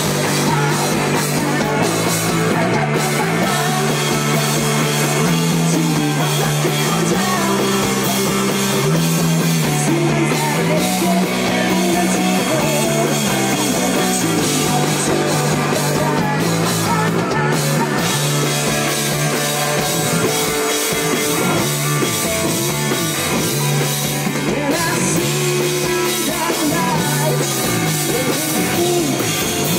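Live rock band playing: electric guitars, bass guitar and a drum kit with cymbals, with a male singer at the microphone. A bass line steps between a few notes under a steady wash of cymbals.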